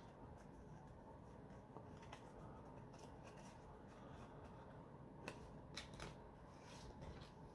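Faint handling of Yu-Gi-Oh trading cards: soft clicks and slides of cards against each other. A few sharper ticks come from about five seconds in as the stack is pushed and squared on the table.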